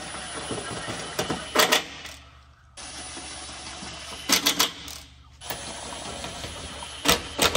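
Cordless impact wrench running bolts into a plastic underbody skid shield: stretches of the motor spinning, broken by three short, louder bursts of rapid hammering, about a second and a half in, midway, and near the end.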